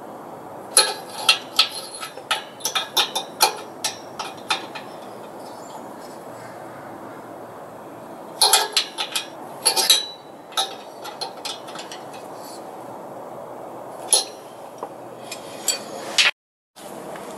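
Hand ratchet wrench clicking in three short, irregular runs, with light metal clinks, while bolts are tightened on an air compressor pump's cylinder head.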